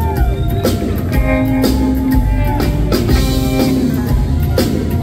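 Live rockabilly band playing, led by an electric guitar on a hollow-body Gretsch: the guitar holds sustained notes, with a note sliding down in pitch just after the start, over bass and steady drum hits.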